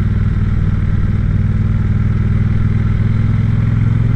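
Triumph Bonneville T100 parallel-twin motorcycle engine running steadily at low revs.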